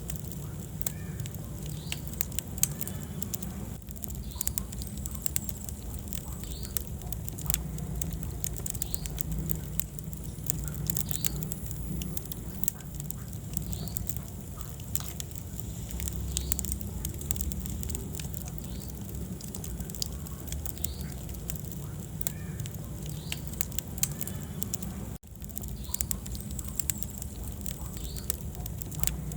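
Wood fire burning in a fireplace: dense, irregular crackles and pops over a steady low rumble, with occasional faint high squeaks. The sound drops out briefly about 25 seconds in.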